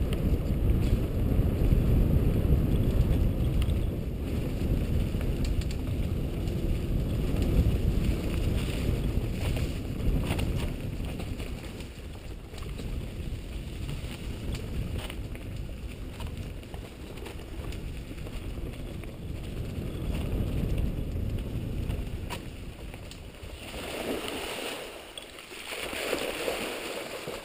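Wind rumbling on the microphone of a camera riding on a mountain bike down a rough singletrack trail, with scattered clicks and rattles from the bike over the bumps. The rumble eases after about twelve seconds. Two louder rushes of noise come near the end.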